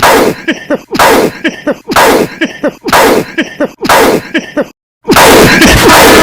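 A man's coughing fit, one short cough-and-gasp snippet looped about once a second, five times in a row. The loop breaks off into a moment of silence, and loud, distorted electronic music cuts in about five seconds in.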